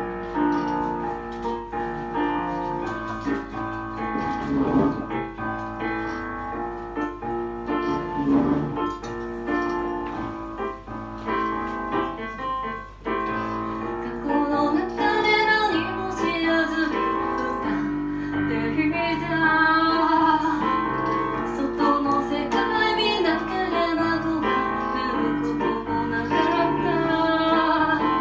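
Song performance: a piano plays alone at first, and about halfway in a female voice begins singing with vibrato over the piano.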